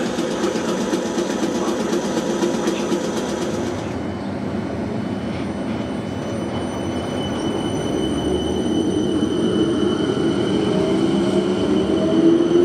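South Western Railway Class 455 electric multiple unit pulling out of the station: rumble of wheels on rail with a thin steady high whine, and traction motors whining up in pitch over the last few seconds as it gathers speed.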